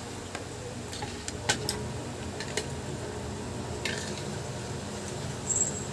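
Light clicks and clinks of spoons and forks against plates during a meal, a few scattered taps over a steady low hum.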